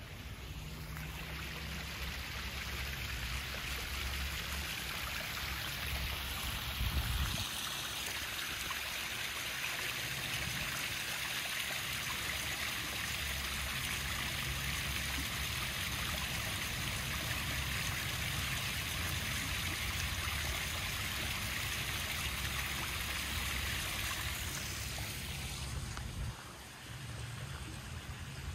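Small rock waterfall pouring into a garden koi pond: a steady rush of splashing water that grows louder a few seconds in and fades near the end. A brief thump comes about seven seconds in.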